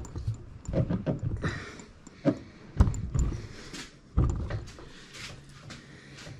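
Metal parts of a Tuff Torq K46 lawn-tractor transaxle knocking and clunking as the housing and gears are handled and fitted together, a string of sharp knocks with the loudest about three seconds in and just after four seconds.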